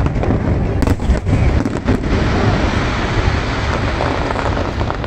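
Fireworks display bursting overhead: a quick run of sharp bangs in the first two seconds, then a dense, continuous rumble and crackle of shells going off together.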